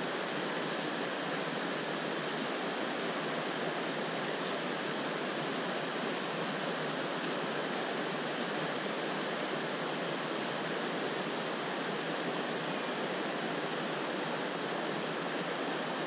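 Mountain stream flowing over a shallow riffle into a pool: a steady, even rush of water.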